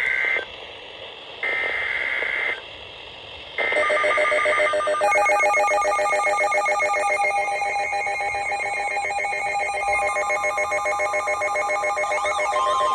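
Emergency Alert System broadcast: three short, shrill digital data bursts (the SAME header) about a second apart. About five seconds in, a loud electronic alert tone of several stacked pitches with a rapid pulsing warble takes over: the attention signal that precedes the spoken warning.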